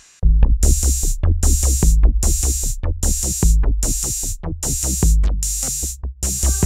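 Electronic background music with a drum-machine beat: deep bass kicks and a hissing high hit about every 0.8 seconds, starting abruptly. Sustained synth chords come in near the end.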